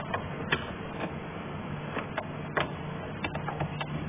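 Socket ratchet clicking in short, irregular runs as a screw on the air filter housing is turned, over a steady low hum.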